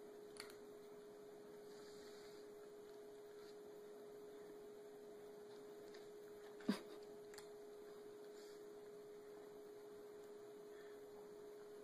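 Near silence with a faint steady hum on one tone, and a few small clicks, the clearest about two-thirds of the way through.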